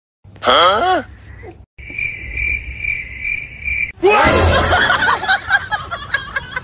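A brief sweeping, sliding pitched sound, then a cricket chirping steadily for about two seconds, then a loud jumble of voice-like sounds.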